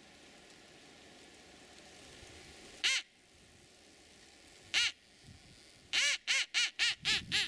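Duck call blown by mouth, quacking to lure ducks: two single quacks, then a quick run of quacks at about four a second.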